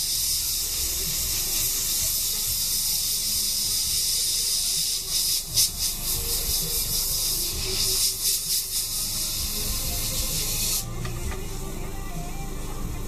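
Airbrush spraying paint: a steady, high-pitched hiss of compressed air that breaks up briefly about five and eight seconds in as the trigger is worked, then cuts off sharply near the eleven-second mark.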